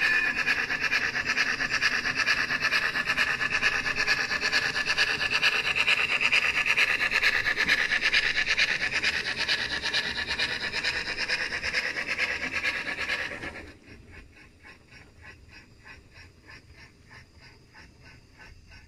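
A 00 gauge model armoured train running along the track, its electric motor and wheels on the rails making a dense rapid rubbing and clicking. About fourteen seconds in the sound drops off sharply to a faint, evenly repeating clicking as the train moves away.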